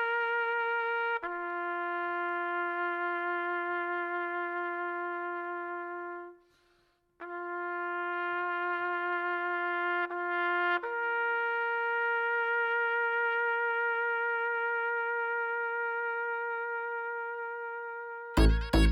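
Music: a brass-like instrument, trumpet-like in tone, playing long held notes that step to a new pitch every few seconds. It breaks off briefly about six seconds in, then resumes. Loud sudden thumps come just before the end.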